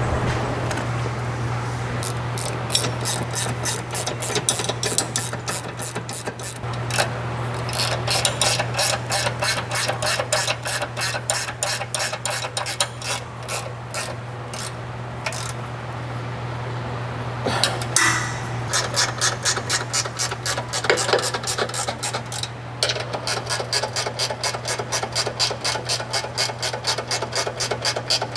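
Hand ratchet wrench clicking steadily as it tightens the bolts of a differential brace. The clicks come in four quick, even runs separated by short pauses, over a steady low hum.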